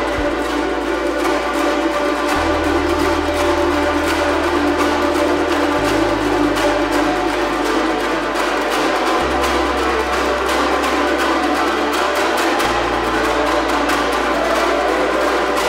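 A komuz ensemble strumming a fast tune in dense, quick strokes, over a sustained low bass that steps to a new note about every three seconds.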